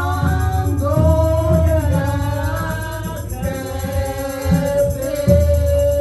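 Church worship music: voices singing a melody over instrumental accompaniment with a strong bass.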